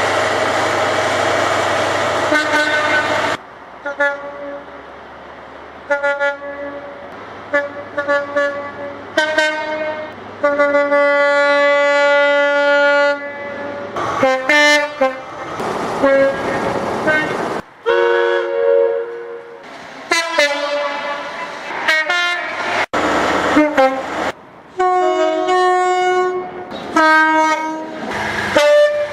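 A string of British railway horns from different locomotives and multiple units, sounding one after another. There are short toots and longer held blasts, some of them stepping between two notes. The run opens with a loud passage of train noise and horn, and the clips change abruptly.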